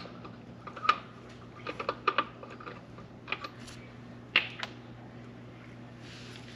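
Light metallic clicks and clinks of steel lug nuts being handled: a freed nut pulled from the impact socket and set down on a concrete floor, about ten irregular clicks in all, over a faint steady low hum.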